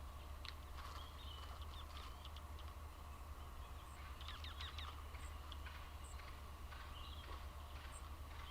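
Several birds calling faintly: scattered short chirps and thin high notes, with a quick cluster of calls about four seconds in, over a steady low hum.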